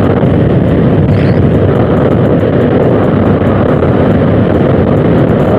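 Steady rush of wind over the microphone and scooter running noise while riding along a road at speed.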